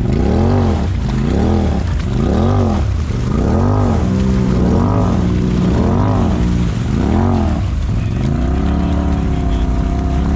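Side-by-side UTV engine revving up and falling back about once a second, over and over, as the machine works through a deep mud rut; near the end the revs are held high and steady.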